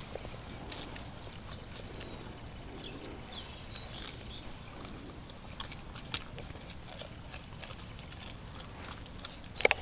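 Young wild boars foraging and nibbling in leaf litter and gravel: scattered soft crunches and clicks of rooting and chewing over a faint steady hiss, with a sharp louder crack just before the end.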